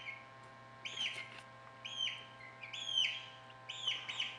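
Newly hatched chicks peeping, a short high call about once a second, each rising sharply then levelling off or falling slightly. A faint steady hum runs underneath.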